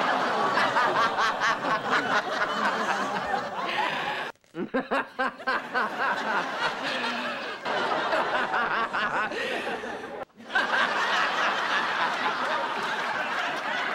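A woman snickering and laughing in a string of short laughs, broken off abruptly twice by cuts, about four seconds in and again just after ten seconds.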